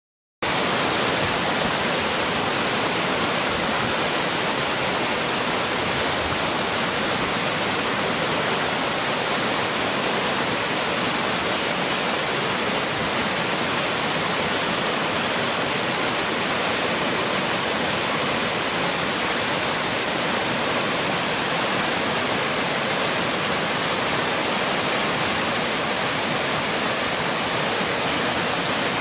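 Small waterfall and the cascading stream below it, water pouring and splashing over rocks in a steady, even rush that is bright and hissy with little deep rumble.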